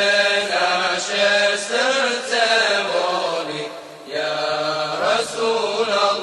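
An ilahija, an Islamic devotional song to the Prophet, sung in long, bending vocal phrases, with a short break about four seconds in.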